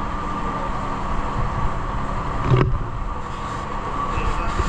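A motor running steadily, with a low rumble and a steady hum; a single knock about two and a half seconds in.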